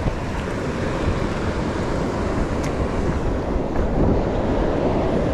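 Steady wind noise buffeting the microphone, over the rush of river water.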